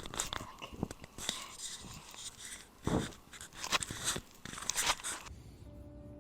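Labrador retriever puppy chewing and mouthing the microphone: close, irregular crunching, scraping and rubbing with a few louder crunches, cutting off suddenly about five seconds in.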